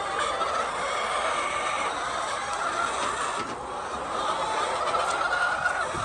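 A flock of domestic hens clucking and calling together, some calls drawn out and level.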